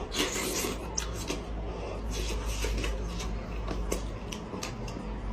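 Close-miked eating sounds: a person chewing and tearing at cooked sheep's head meat, with many irregular wet mouth clicks and smacks over a steady low hum.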